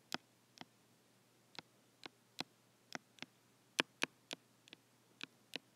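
Stylus tapping and clicking on an iPad's glass screen while handwriting an equation: a dozen or so light, sharp taps at irregular spacing, some in quick pairs.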